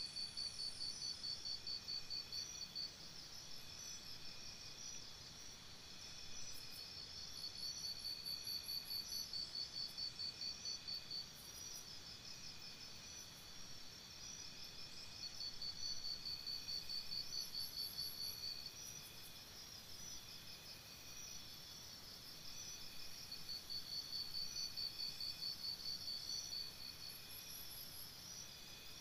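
Crickets chirping in rapid pulsing trills that come in bouts of a few seconds, one after another, as a faint steady ambience.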